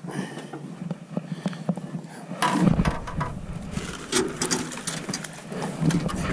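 Clicks, knocks and rattles of handling on an aluminium jon boat deck as a caught crappie is put away. From about two and a half seconds in, clothing rustles and rubs against the microphone as the angler bends over.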